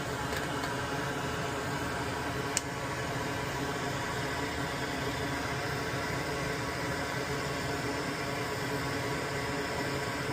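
Steady air hiss and fan hum of a hot-air rework station blowing onto a relay's solder joints to desolder it from the control board, with a single sharp click about two and a half seconds in.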